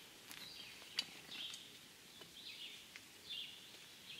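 Faint bird song: short falling chirps repeated roughly once a second. A few light clicks sound over it, the clearest about a second in.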